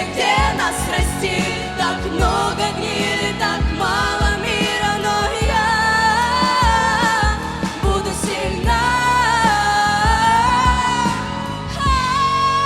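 Young singers' voices holding long, sliding notes without clear words over a pop backing track with a steady drum beat.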